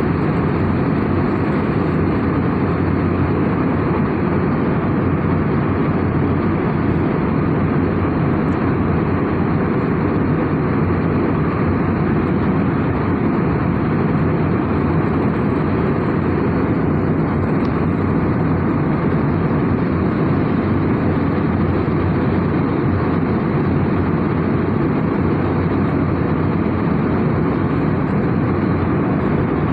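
Steady airliner cabin noise: a constant rush of engine and airflow sound at a level that doesn't change.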